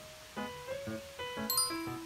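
Background music: a light instrumental tune of short, rhythmic pitched notes, with a bright high chime about one and a half seconds in.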